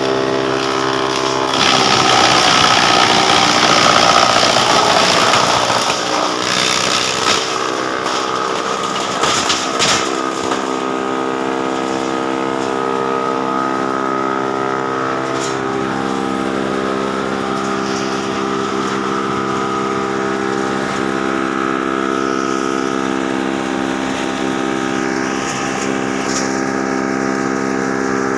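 Wood chipper running with a steady mechanical drone. It gets louder and rougher from about two to six seconds in, and a few sharp knocks come around nine to ten seconds in.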